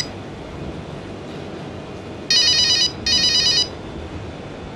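Telephone ringing in a double-ring pattern: two short trilling rings close together, about halfway through, over a steady background hiss.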